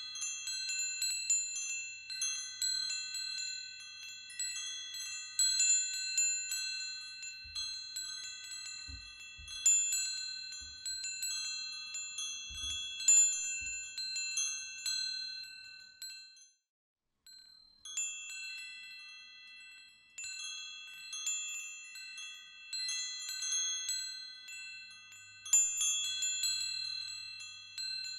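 Chimes ringing: many high, metallic notes at a handful of fixed pitches, struck irregularly and overlapping as they ring on. They stop for under a second about two-thirds of the way through, then start again. A few faint low thuds come near the middle.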